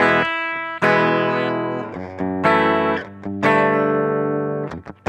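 Upgraded Chibson electric guitar on its bridge pickup, played clean through a Marshall amp with no effects and taken from the amp's DI out. Four strummed chords, each left to ring out.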